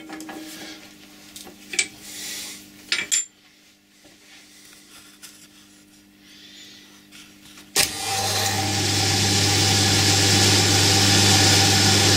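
Metal clicks and knocks as the carbide flow-drill bit is fitted in the milling machine's chuck. About eight seconds in, a click and the belt-driven milling machine starts, running steadily at its top speed of about 2000 RPM with a strong low hum.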